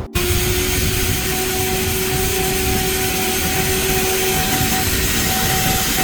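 An electric woodworking power tool running steadily: a loud, even rushing noise with a constant-pitched motor hum.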